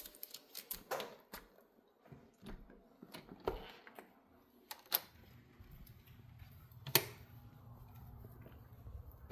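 Scattered light clicks and taps, with two sharper clicks about five and seven seconds in; a low steady hum comes in about halfway.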